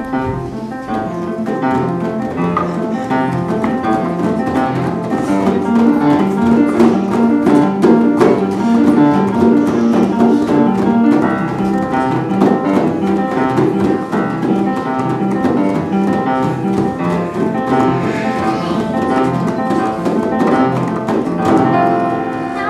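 Instrumental music playing, a run of steady notes with no singing.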